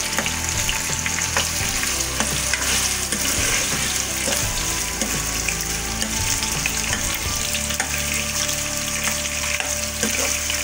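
Potato pieces sizzling steadily as they shallow-fry in hot oil in a nonstick pan, with scattered light scrapes and taps of a spatula turning them. They are being fried only until lightly golden.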